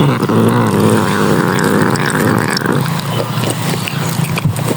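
Angry domestic cat growling: a low, rough, continuous rumble that is strongest for the first two and a half seconds and then eases.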